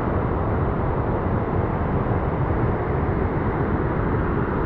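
Waterfall in heavy monsoon flow: a steady, low rushing of falling water.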